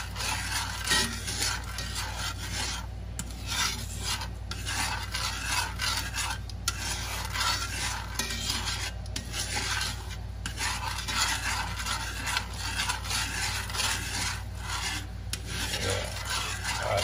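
Butter and mirin sauce sizzling and bubbling in a cast-iron skillet while metal tongs stir and scrape it around the pan, reducing it as the alcohol cooks off.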